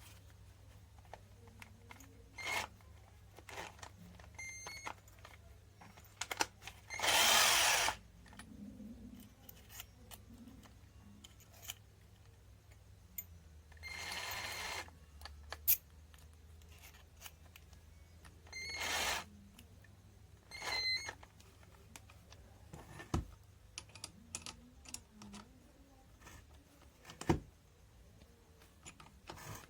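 Cordless drill run in several short bursts of about a second each, the longest and loudest a third of the way in, with scattered clicks and knocks of handling between the runs.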